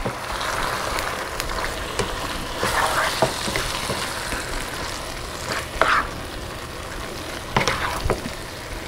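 Meat and beef gravy sizzling in a frying pan while being stirred, with a few short scrapes and taps of the utensil against the pan.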